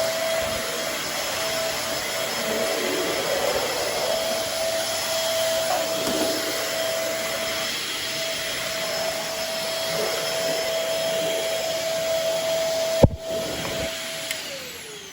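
Shark Navigator Swivel bagless upright vacuum cleaner running steadily with a constant whine over a hiss, with one sharp knock near the end. It is then switched off, its whine falling as the motor winds down.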